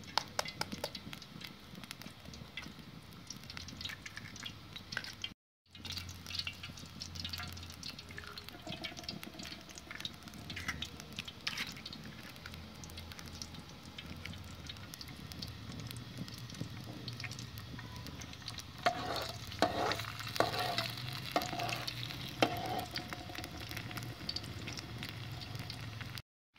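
Eggs frying in oil in an aluminium pan over an open wood fire: a steady sizzle with a dense run of small crackles and spits. The sound drops out briefly about five seconds in.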